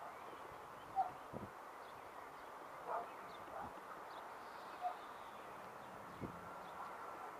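Distant Boeing 757-200 jet engines making a steady hum as the airliner lands. A few short, sharp animal calls sound over it, about a second, three seconds and five seconds in.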